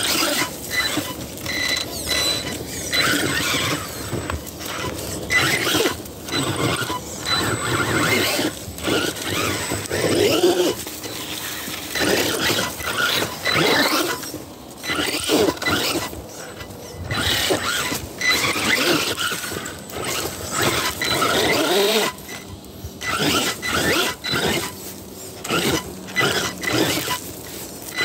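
RC rock bouncer's motor and drivetrain whining in repeated bursts of throttle, its tyres scrabbling and knocking over rock.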